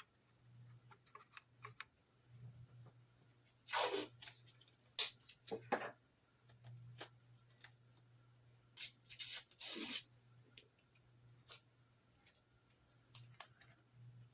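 Strips of tape being pulled off a roll and torn, a few short rips with small clicks of handling between them.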